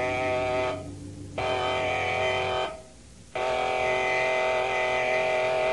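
Submarine surfacing alarm: a steady buzzing horn sounding in long blasts, broken by two short gaps about a second and about three seconds in, before it cuts off at the end.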